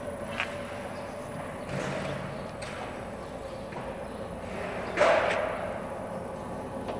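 Automatic dumpling-making machine running with a steady hum, with a few short knocks as the dough sheets feed through; the loudest clunk comes about five seconds in.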